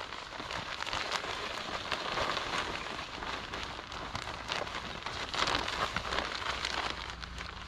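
Peat moss pouring from its bag into the mesh cage of a Landzie roller spreader: a steady rustling hiss of loose peat and clumps landing, with many small ticks throughout.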